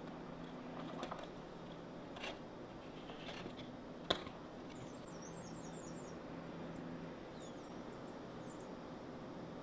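A few light clicks and taps from baking work with kitchen utensils, the sharpest about four seconds in, over a steady low hum; faint high chirps come in during the second half.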